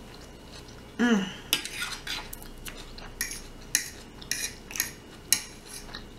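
Metal fork clicking and scraping on a plastic plate while picking up food: a run of short, sharp clicks, the loudest a little after five seconds in.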